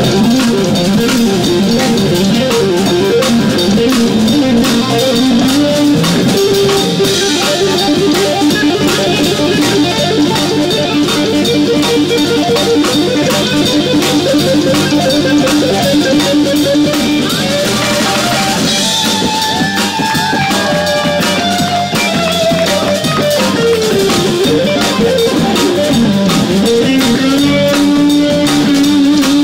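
Improvised jazz from a live band: an electric guitar solo with bent and sliding notes over electric bass and a drum kit.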